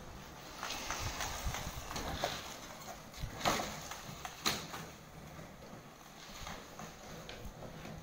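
Empty plastic PET bottles tied to an electric mobility scooter knocking and clattering against each other in irregular hollow knocks as the scooter turns, with two louder knocks about halfway through.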